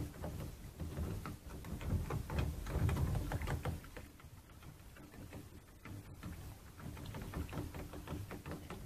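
Soapy water splashing and sloshing in a plastic tub as a toothbrush scrubs PlayStation controller parts soaking in it, with small irregular clicks and knocks of the plastic parts. The louder splashing is about two to three seconds in, and it is lighter after that.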